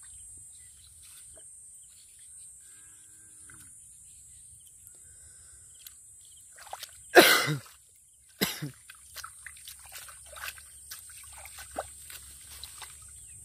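Hands digging in wet mud and shallow water: quiet squelching, then a loud wet splat about seven seconds in and a second one a second later, followed by many small wet clicks and crackles as the hands work through mud and plant stems.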